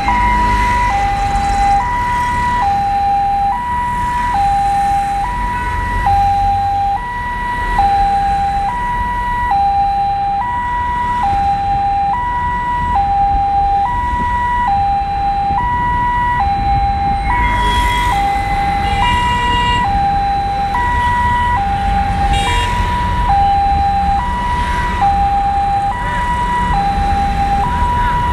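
Emergency-vehicle two-tone hi-lo siren, alternating evenly between a higher and a lower note about once a second, over the low rumble of the car and road.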